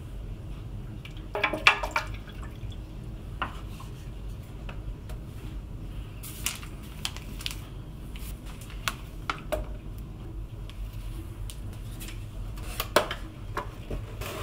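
Kitchen handling sounds: water poured into a clear plastic container, then scattered clicks and knocks as the container, a paper flour bag and a wooden spoon are handled, over a steady low hum. The loudest knocks come in a cluster about a second and a half in and again near the end.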